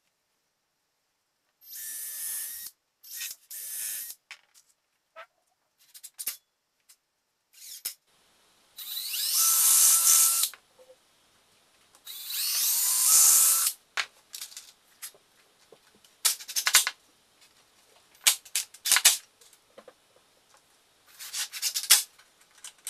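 Cordless drill-driver running in two loud bursts of about a second and a half each, driving screws into the plywood strips of a torsion box frame, with shorter bursts earlier and clicks and knocks of the wood being handled.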